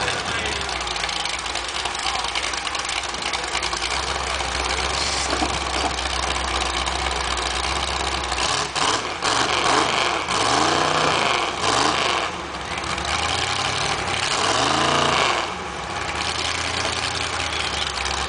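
Vehicle engines idling with a steady low hum, then revved up and down several times in the second half, the loudest stretch a bit after halfway and again near the end.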